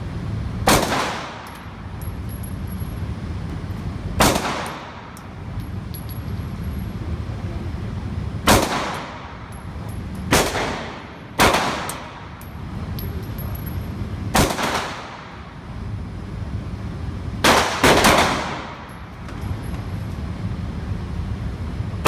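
Glock 19 Gen 4 9mm pistol firing single shots, about eight, unevenly spaced a few seconds apart, with two in quick succession near the end. Each shot rings out briefly, and a steady low rumble continues between shots.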